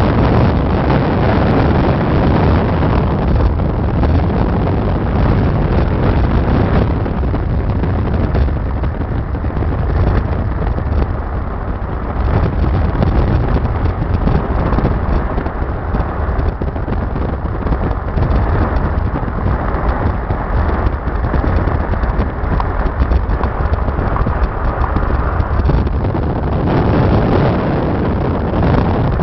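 Heavy wind buffeting the microphone of a moving car, over the car's steady road noise.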